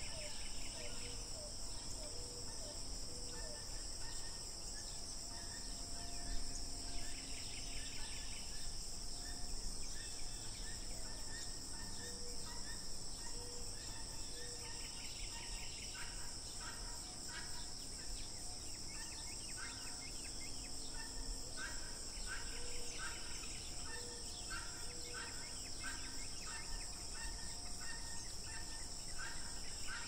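A dawn chorus of insects giving a steady high drone, with a trill that comes back about every seven seconds. From about halfway on a bird calls in a run of short repeated notes. Underneath is the faint low rush of a mountain stream.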